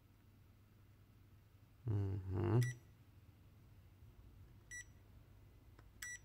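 FNIRSI S1 digital multimeter giving short high beeps as its buttons are pressed to switch measuring modes: three beeps, a second or more apart. A brief low vocal 'hmm' from a man about two seconds in is the loudest sound.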